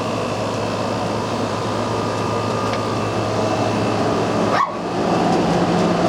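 Room of small dogs: a dog makes a brief sound about four and a half seconds in, over a steady low hum and noisy background.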